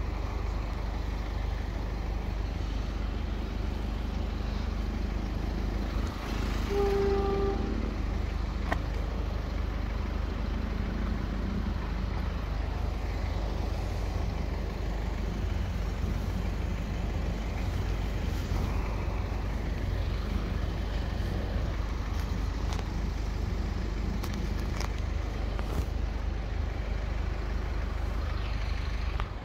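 Steady low rumble of road traffic at a level crossing, with one short horn-like note lasting under a second about seven seconds in.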